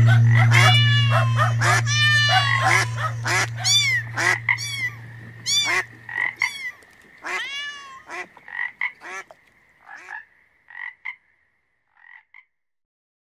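A jumble of cartoon animal sound effects, mostly frog croaks and cat meows, mixed with the song's other animal calls over the song's last held chord. The chord fades out about halfway through. The calls grow sparser and stop shortly before the end.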